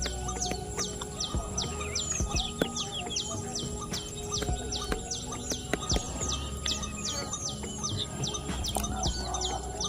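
Birds calling: a high, hooked call repeated evenly, about two or three times a second, over lower, steadier calls.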